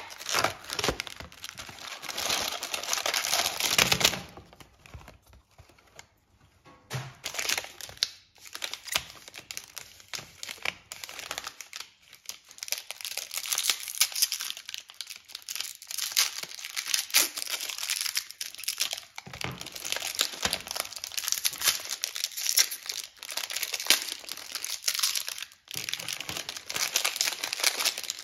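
Kinder Choco fresh box being opened, then the bars' plastic wrappers crinkling and tearing as they are unwrapped one after another, in irregular bursts with short pauses.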